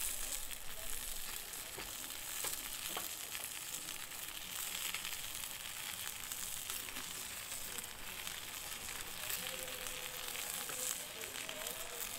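Food frying and sizzling in a hot pan, a steady hiss with scattered small crackles.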